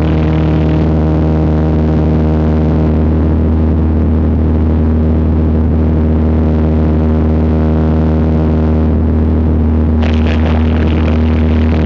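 Cessna 152's four-cylinder Lycoming engine and propeller droning steadily in cruise flight, heard from inside the cabin. A brighter hiss of air noise comes in near the end.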